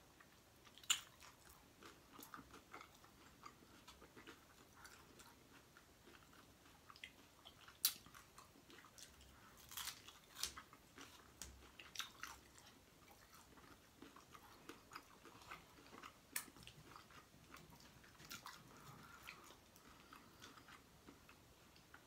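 Faint, close mouth sounds of chewing a crunchy hard taco shell: scattered sharp crunches and smacks, with a louder crunch about a second in and another near eight seconds.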